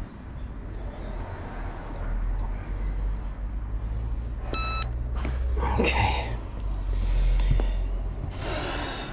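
Handheld mini heat press's timer giving one short, high beep about four and a half seconds in as its countdown reaches zero, signalling the end of a heat-transfer-vinyl press. Rustling of the plastic transfer sheet being handled follows, over a steady low rumble.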